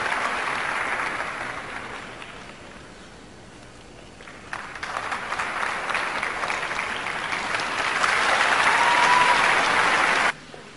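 Arena crowd applauding: the clapping dies down, then builds again from about four and a half seconds in until it cuts off suddenly near the end.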